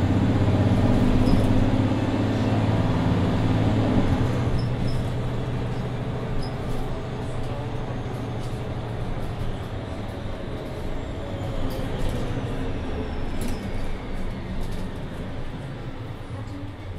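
Mercedes-Benz Citaro II city bus under way, heard from inside: the engine hum is strong for the first few seconds, then eases off and the sound grows gradually quieter, leaving a steady rolling rumble.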